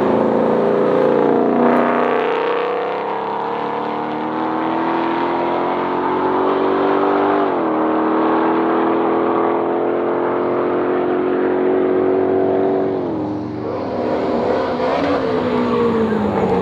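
Performance car engine accelerating hard through the gears, its pitch climbing steadily with two sharp drops at upshifts, about halfway through and again near the end, then falling away at the end.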